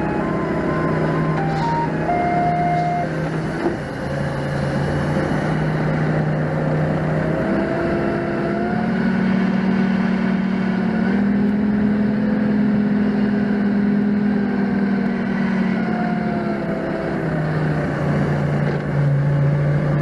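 Forklift engine running under load as it carries a pallet. The engine speeds up for several seconds from about the middle, then settles back. A few short high beeps sound in the first few seconds.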